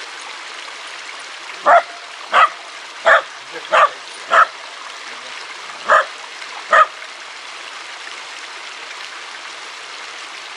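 Small dog barking seven short, sharp barks: five about two-thirds of a second apart, a short pause, then two more. Under them runs the steady rushing of a shallow stream.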